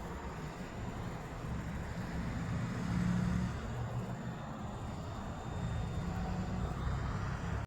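Low, steady diesel engine rumble of a semi truck, swelling for about a second some three seconds in; no horn sounds.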